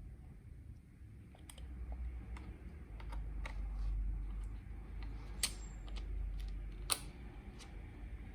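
Scattered light clicks and taps of hands working on a Lenovo T440s laptop, irregular rather than a steady typing rhythm, with two sharper clicks past the middle.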